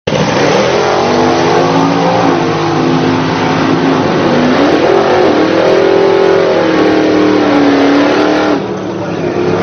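Drag racing car launching and accelerating hard down a drag strip at full throttle, the engine's pitch climbing and falling back at each gear change. The level drops suddenly near the end.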